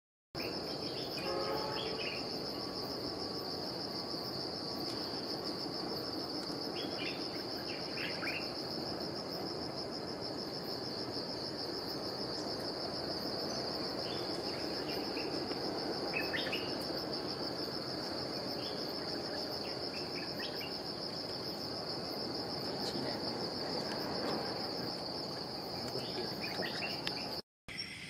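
Forest insects droning in one steady, high-pitched note, with short bird chirps a few times over it.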